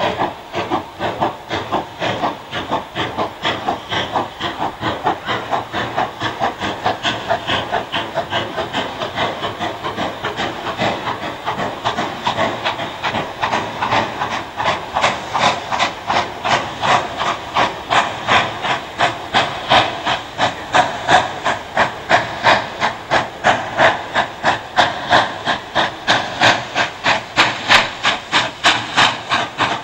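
Double-headed steam locomotives working hard on the approach, their exhaust beats coming in a rapid, even rhythm of chuffs and hiss. The beats grow steadily louder as the train draws nearer.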